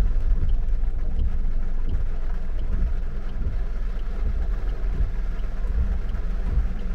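Car driving: a steady low rumble of engine and road noise, with faint regular ticks about every 0.7 s.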